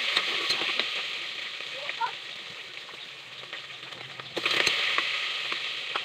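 Food sautéing in a large aluminium pot on a gas burner: a steady sizzle that swells at the start and again about four and a half seconds in as the contents are stirred, with light taps of the spoon against the pot.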